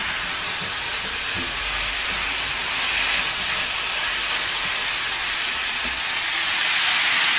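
Ground meat sizzling in a hot frying pan as it is stirred with a wooden spatula: a steady, even hiss.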